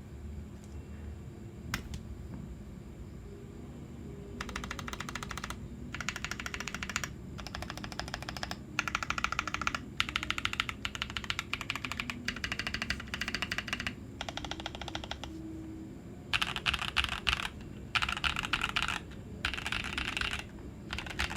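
Mechanical keyboard with stock Ajazz x Huano Banana tactile switches and PBT keycaps being typed on fast, in bursts of about a second separated by short pauses. Before that, after one lone click, there is about four seconds of little but a low hum.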